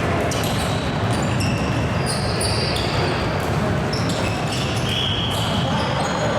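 Basketball game play in a gym: a ball bouncing on the court and sneakers squeaking in short, high-pitched chirps, over a steady crowd hubbub.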